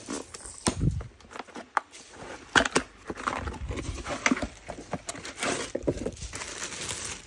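Cardboard packaging being opened and handled: box flaps pulled open and the carton slid out, with a low thump about a second in, then sharp clicks and the crinkling of the lunch box's plastic wrapping.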